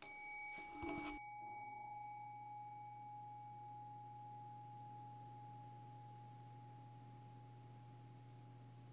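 A bowl bell struck once, its clear tone ringing on with a long slow decay, its brighter overtones dying away within a few seconds. A few soft knocks follow just after the strike, and a steady low hum comes in about a second in.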